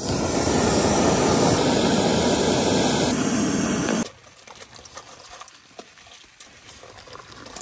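Small canister-top backpacking gas stove burning under a pot of water, a steady loud hiss of the flame that cuts off suddenly about four seconds in, leaving only faint sounds.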